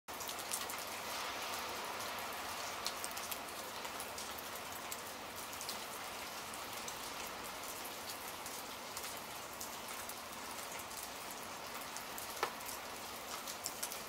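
Steady rain falling, with scattered drops ticking sharply on a hard surface and one louder drop near the end.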